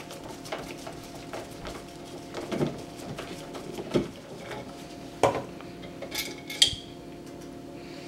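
Screwdriver backing out the metal mounting screws of a wall light switch: scattered small metal clicks and scrapes, over a steady low hum.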